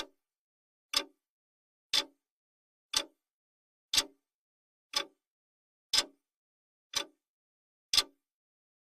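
Clock-style ticking sound effect: one short sharp tick every second, evenly spaced, with dead silence between ticks.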